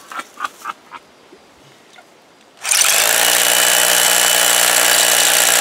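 Power drill with a carbide bit boring into a granite boulder, starting about two and a half seconds in and running loud and steady.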